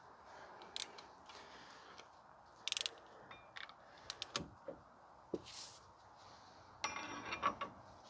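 Ratcheting torque wrench working a front axle nut: two short bursts of rapid ratchet clicks, about three seconds in and again near the end, with a few single clicks between.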